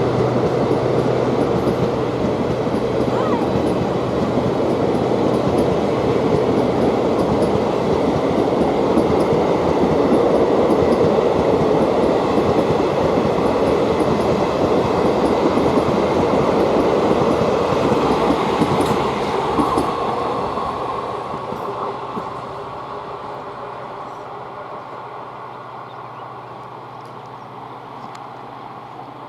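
Passenger train running past on the track with a loud, steady rail rumble, fading away from about two-thirds of the way through as the train moves off.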